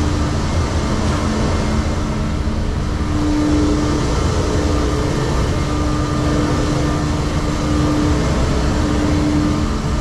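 Volvo semi truck's diesel engine running at low revs, heard from inside the cab as a steady low rumble with a faint hum that swells and fades, while the truck creeps slowly forward.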